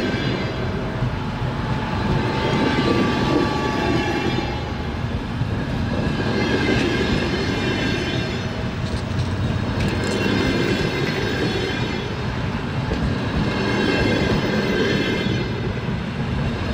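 Train wheels clattering over the rails in a steady, continuous rolling rumble. A high ringing tone swells and fades several times over it.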